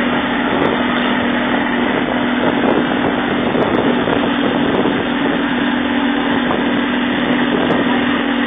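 Mercury outboard engine on a speedboat running steadily at speed, a constant drone, mixed with the rush of wind and water.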